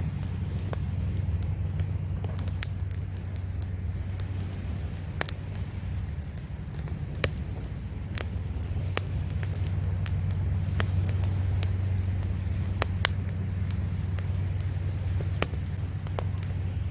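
Wood campfire crackling, with sharp pops at irregular intervals about once a second and one louder pop near the end. Under it runs a steady low rumble of sea waves.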